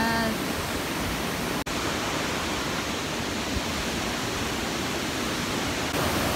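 Steady rush of a rocky mountain river running through rapids, an even hiss of white water, broken off for an instant about a second and a half in.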